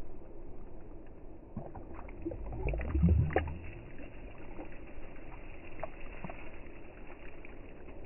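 A released bass splashing as it kicks away through shallow water, with one short splash about three seconds in. A scatter of small water ticks runs around it.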